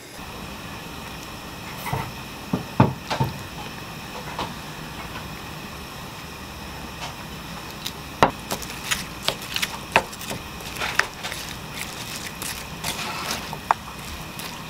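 Wooden spoon knocking and clicking against a wooden bowl as seasonings are spooned onto chopped onion and the mixture is stirred. A few sharp knocks come about two to three seconds in, and a run of quicker clicks follows from about eight seconds on, over a steady low hiss.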